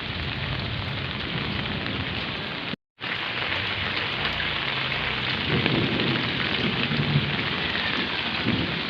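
Heavy rain pouring down steadily, cut off for a moment about three seconds in. A low rumble rises under the rain in the second half.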